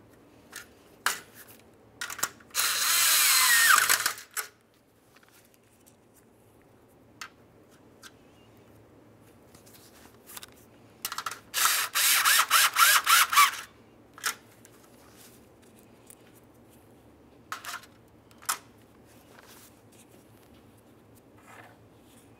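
Power ratchet with a 10 mm socket running twice, driving the grille's mounting studs in. The first run is steady for under two seconds, its pitch sinking as the stud tightens. The second, about eleven seconds in, comes as quick stuttering pulses as it snugs a stud down. Light clicks and taps of parts being handled fall between the runs.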